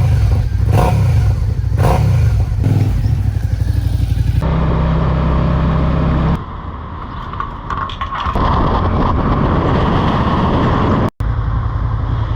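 Suzuki SFV650 motorcycle's V-twin engine running while riding, heard in several clips cut together. The sound changes abruptly a few times, with one short dropout near the end.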